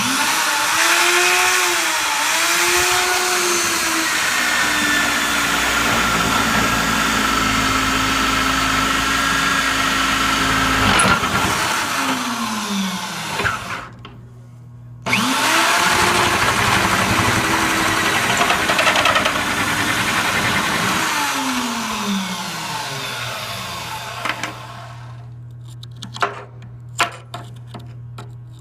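Electric drill boring through 3/16-inch steel plate: the motor spins up and cuts for about eleven seconds, then winds down. It starts again about fifteen seconds in, cuts for several seconds and winds down, followed by a few light clicks near the end.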